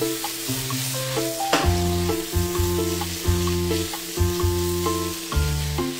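Smoked pork liver and garlic chives sizzling as they are stir-fried over high heat in a wok, tossed with a spatula. Background music plays over it, and a bass line comes in about one and a half seconds in.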